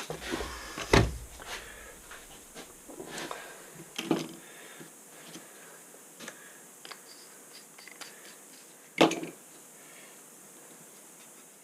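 Knocks and clicks of hand tools and stove door parts being handled, with three louder knocks about a second in, about four seconds in, and about nine seconds in.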